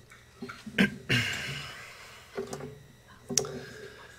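Handling noise at a lectern microphone: a few scattered clicks and knocks, with a short rustle about a second in.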